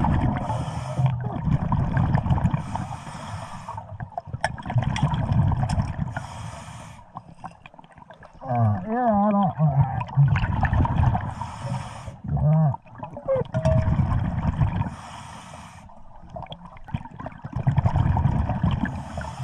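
Scuba diver breathing through a regulator underwater: each exhalation releases a rush of bubbles every few seconds, over deep bubbling and gurgling. Near the middle there is a wavering pitched sound.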